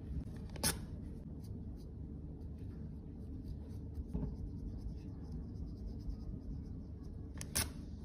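Cotton pad in steel tweezers wiping a lipstick tube clean: faint scratching and small ticks, with two sharp clicks, one under a second in and one near the end.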